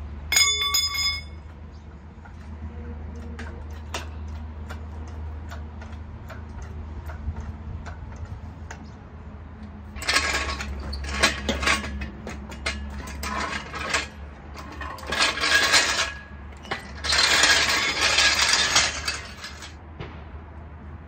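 Metal clinks and rattles from an engine hoist and load leveler being worked under a hanging small-block Ford V8. There is a short ringing clink about half a second in, then light ticking, then several loud noisy bursts of a second or two each through the second half.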